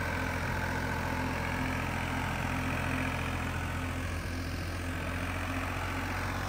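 New Holland 3630 tractor's diesel engine running steadily under heavy load while pulling a disc harrow through deep, loose soil.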